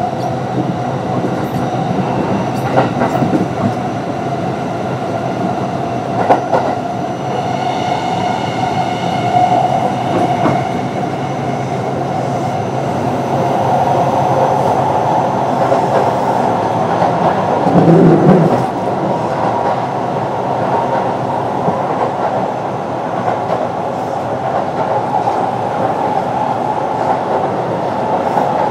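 Onboard running sound of a Kintetsu 9020-series electric train with Mitsubishi IGBT-VVVF drive travelling between stations: a steady rumble of wheels on rail, with a few rail-joint clicks. A cluster of high ringing tones comes in for a few seconds about eight seconds in, and there is a brief louder thump about eighteen seconds in.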